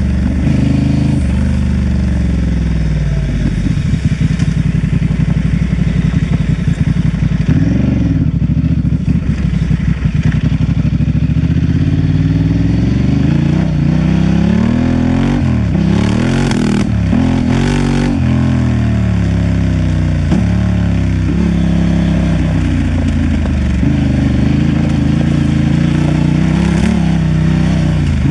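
Honda Transalp XL750's parallel-twin engine running under way on a dirt trail, its pitch rising and falling again and again as the throttle opens and closes. Two short clattering noises come a little past the middle.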